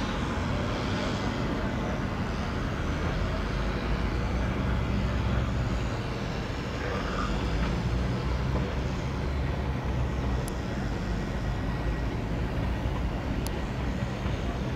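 Stadler WINK bimodal multiple units' combustion engines running with a steady low drone as a train pulls slowly into the station.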